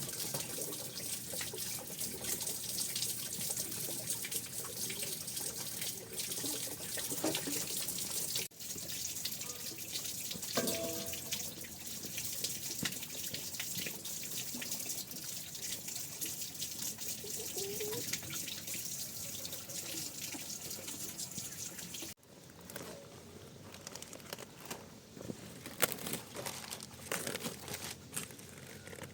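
Water running and splashing, as from a tap into a basin, with scattered knocks. It breaks off abruptly twice, and after the second break it is quieter, with clicks and knocks.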